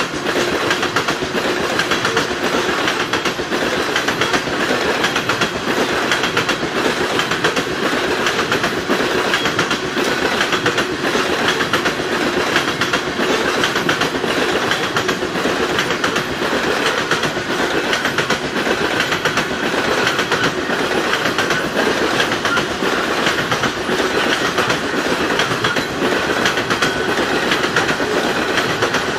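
Loaded coal cars of a long freight train rolling past at speed: a steady rumble of wheels on rail with a rapid clickety-clack of wheels passing over the track.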